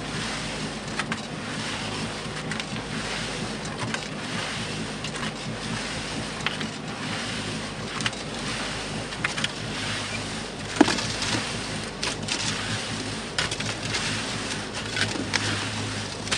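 Concrete mixer running: a steady motor hum under the churning slosh of wet concrete, with stones clattering irregularly and a sharp knock about eleven seconds in.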